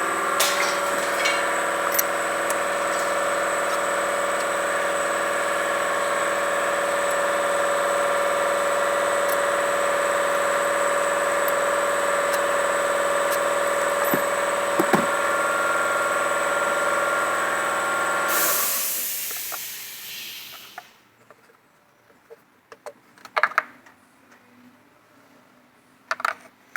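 Ford Focus engine running steadily, with a whine of several held tones. About eighteen seconds in there is a brief rush of hiss, then the running stops and only a few faint clicks follow.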